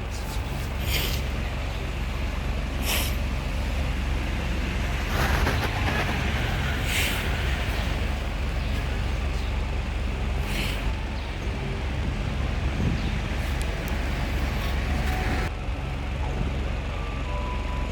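Electric fan running, its airflow rushing over the microphone as a steady low rumble, with hissing whooshes every few seconds.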